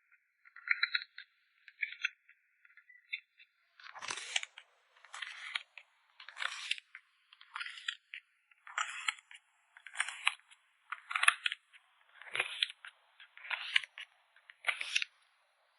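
Short crinkling, rustling bursts from handling plastic sleeves and packing materials while packing photocards, about one burst a second with brief silences between.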